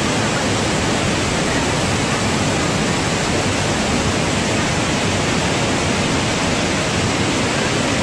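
Mechanical curtain waterfall pouring from a road bridge into a canal: a steady, even rush of falling water.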